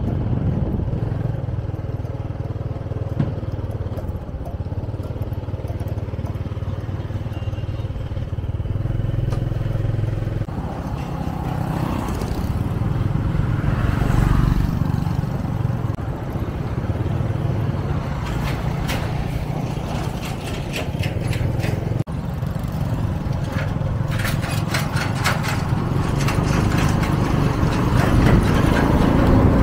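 Motorbike ride through street traffic: a steady low engine and road rumble, with rapid clattering in the second half.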